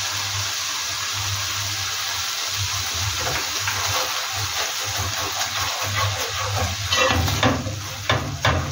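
Tomato and onion base with freshly added tomato paste sizzling in a non-stick frying pan while a wooden spatula stirs and scrapes through it. There is a steady hiss throughout, and from about two thirds of the way in the spatula scrapes and knocks against the pan in quick strokes.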